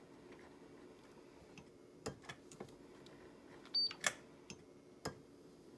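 A few sharp clicks from a Siglent digital oscilloscope's time-base knob being turned, spread over the second half, with a faint steady hum behind.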